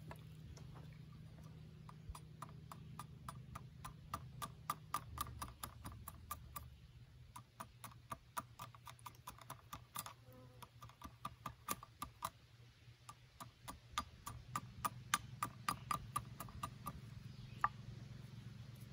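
A carving tool striking and cutting into wood in quick, regular knocks, about three or four a second, in runs with short lulls between them.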